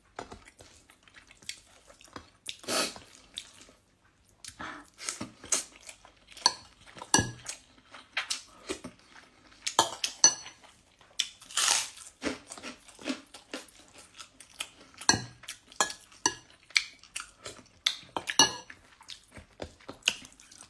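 Fingers scraping and tapping on a ceramic plate while eating rice and fish by hand: scattered light clicks and clinks, some with a short ring, along with small eating sounds.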